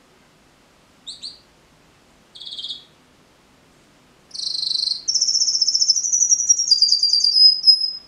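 Red-factor canary singing: two short chirps, a brief buzzy note, then from about four seconds in a loud, rapid high trill that steps down in pitch near the end.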